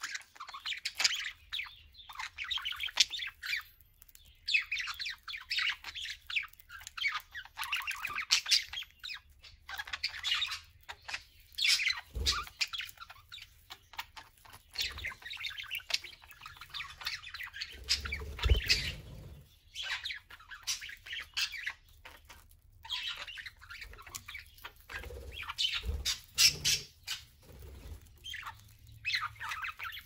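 Budgerigars chattering: quick runs of short chirps and warbles that come in bursts, with a few low thumps in between.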